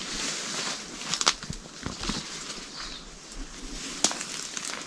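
Footsteps pushing through bush undergrowth, leaves and ferns brushing and rustling, with sharp cracks of twigs or branches about a second in and again near the end.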